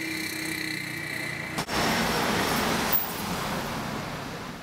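City street traffic noise: a steady wash of cars passing. The sound changes abruptly about one and a half seconds in and slowly fades near the end.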